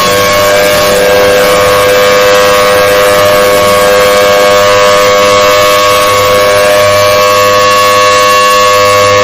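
Mock emergency alert system alarm: several steady alarm tones sounding together without a break, very loud and harsh, with a dense noisy haze under the tones.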